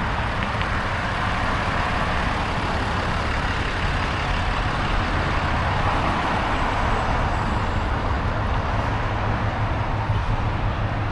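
Steady motor-vehicle noise: a constant low engine hum under an even rush of road noise, with no breaks or sudden events.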